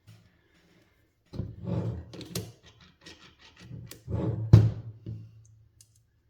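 Metal torque wrench parts being handled on a workbench: a run of clicks and knocks, with one louder knock about four and a half seconds in.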